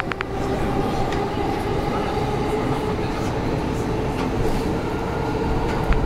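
JR East E231-500 series Yamanote Line electric train running, heard from inside a car: a steady traction hum with wheel and rail rumble, and a few sharp clicks at the very start.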